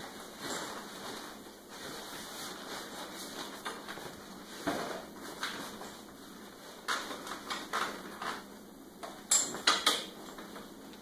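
Metal frame rods of a lawn sweeper's hopper clinking, rattling and scraping as they are worked through the sleeves of its fabric bag. A quick run of sharp metal clinks about nine to ten seconds in is the loudest part.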